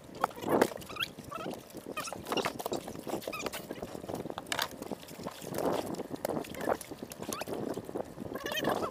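Small fishing boat on the sea: water slapping against the hull with irregular knocks and clicks.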